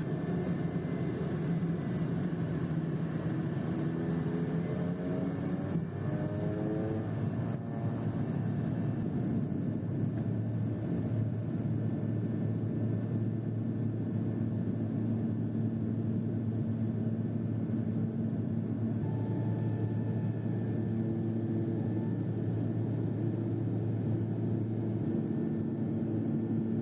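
Pilatus PC-12's single Pratt & Whitney PT6A turboprop heard from inside the cabin, spooling up to takeoff power with a rising whine a few seconds in, then a steady drone through the takeoff run.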